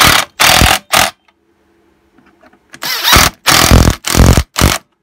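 Impact driver hammering in short bursts as it drives the handle screws into a Stihl BG86 leaf blower: three bursts in the first second, then four more from about three seconds in.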